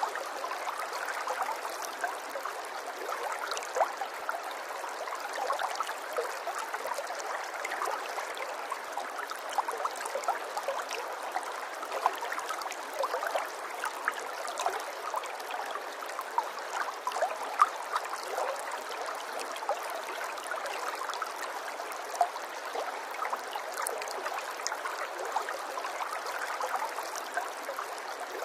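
Running water, a steady babbling flow sprinkled with small irregular splashes and gurgles.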